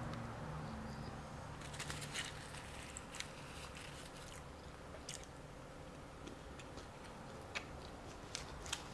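A person chewing food close to the microphone: soft, irregular mouth clicks and smacks, with a faint low hum underneath.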